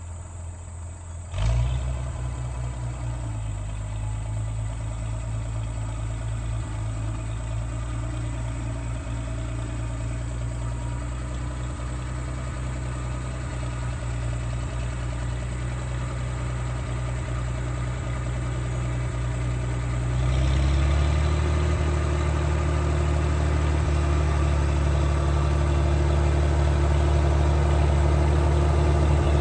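International 460 Utility tractor engine idling steadily. It jumps louder about a second and a half in, and about twenty seconds in it picks up, running louder and a little higher as the throttle opens.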